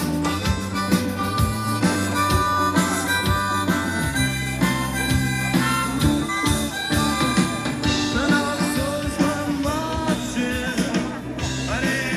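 Blues-rock band playing live: a harmonica carries the lead over electric guitars and drums, bending its notes up and down in the second half.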